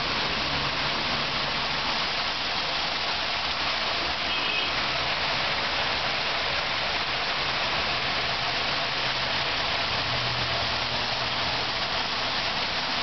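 Water from an artificial portable waterfall pouring and splashing in a steady, unbroken rush.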